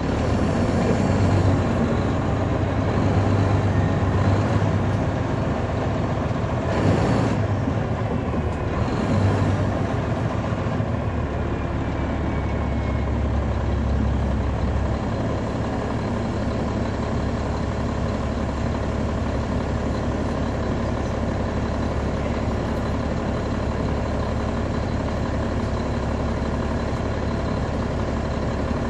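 Caterpillar C13 ACERT diesel engine of a 2009 NABI 40-SFW transit bus, heard from the rear seats inside the bus, running steadily. A short hiss comes about seven seconds in, and the low rumble grows heavier for a few seconds partway through.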